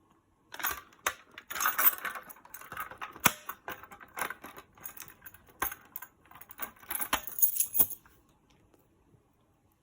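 Reset key jangling and scraping in the lock of a Gamewell MS-7 pull station (a rebranded Fire-Lite BG-12L), with several sharp clicks as the station is reset after being pulled. The sounds stop about two seconds before the end.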